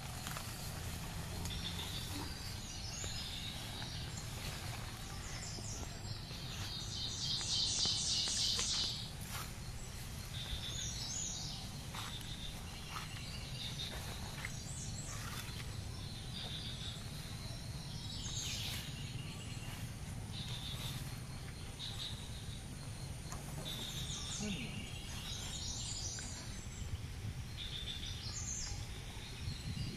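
Birds chirping outdoors in short repeated calls, with a louder run of chirping about seven seconds in, over a steady low background rumble.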